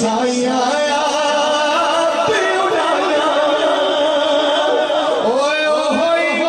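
A man singing, holding long notes that waver and glide in pitch.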